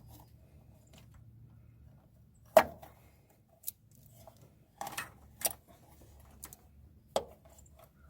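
A handful of sharp metallic clicks and clinks as a hose clamp and intake parts are handled and fitted, the loudest about two and a half seconds in.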